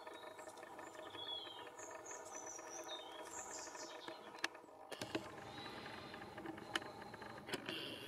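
A few sharp, separate taps of a female great spotted woodpecker pecking at wood, over a steady low hum. Other birds chirp high and briefly in the first half.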